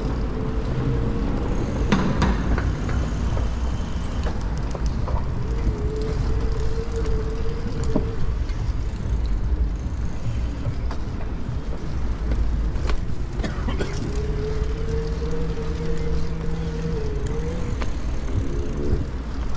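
Wind rumble on the microphone and road noise from an e-bike being ridden. A steady mid-pitched whine comes in for a couple of seconds, then again for about three seconds later on, and a few sharp knocks sound along the way.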